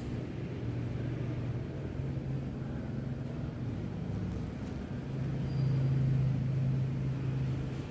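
Steady low machine hum, swelling louder about five seconds in and easing back just before the end.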